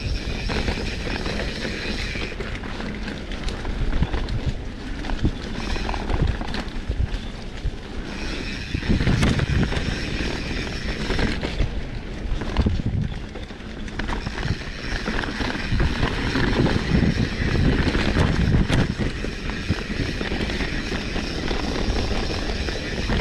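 Wind buffeting the microphone of a camera on the move, a continuous gusting rumble, with a high steady buzz that fades out and comes back twice.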